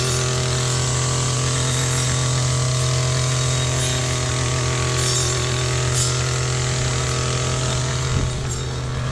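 Small-engine brush cutter running steadily at high speed, one unchanging drone with no revving.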